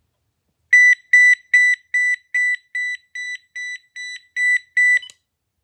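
Page tone of a Uniden EXP7900 900 MHz analog cordless phone, set off from the base's page/find button: a high electronic beep repeated eleven times, about two and a half a second, stopping with a click near the end.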